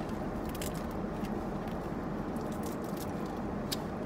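Steady low hum of a car cabin, with a few soft clicks and crackles from fried-chicken takeout being handled and eaten.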